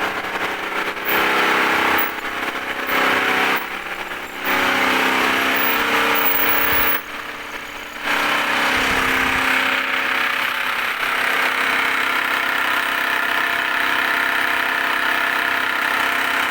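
Lathe running while machining a steel universal-joint spider cross held on a mandrel: a steady machine hum under a harsh cutting hiss. The cutting noise breaks off briefly several times in the first half, then runs steadily.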